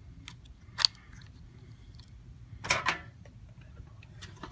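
Small plastic clicks and a brief clatter from handling the opened Dell laptop's parts: one sharp click about a second in, a short rattle of clicks near three seconds, and a few fainter ticks.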